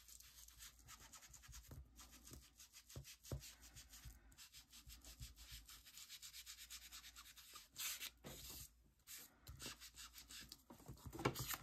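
Ink blending tool rubbed in quick, repeated strokes over a small paper cut-out, a faint scuffing of the applicator against paper as ink is worked on to darken it.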